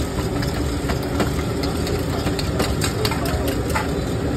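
A metal spoon clinks sharply and irregularly against a brass bowl as eggs are beaten, over a steady low rumble.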